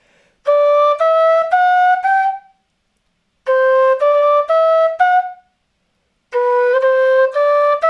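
Quena (Andean notched end-blown flute) playing a scale exercise: three short phrases of four separately tongued notes, each phrase stepping upward and starting lower than the one before, with brief pauses between phrases.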